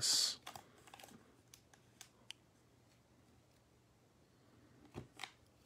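A baseball card pack's wrapper torn open with a short rip, followed by scattered light clicks and rustles of the cards being handled, and two brief rustles near the end.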